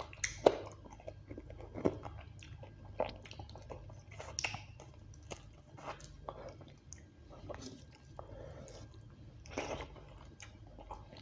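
Close-miked eating sounds of a person eating spicy beef curry with rice: irregular wet chewing and lip smacks with occasional crunchy bites.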